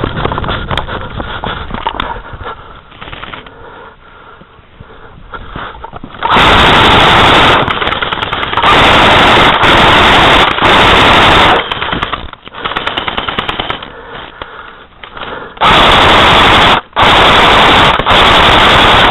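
Airsoft guns firing on full auto: several long, very loud bursts of rapid rattling shots starting about six seconds in, with a break of quieter rapid firing between them.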